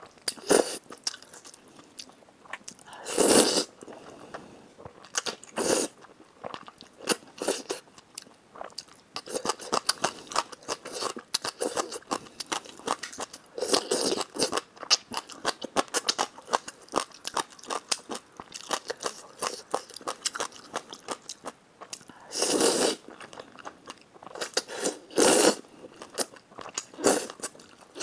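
Close-up eating sounds: wet chewing and mouth clicks of a person eating sticky, sauce-coated fire-chicken (Buldak) instant noodles, broken by about five loud slurps as mouthfuls of noodles are sucked in.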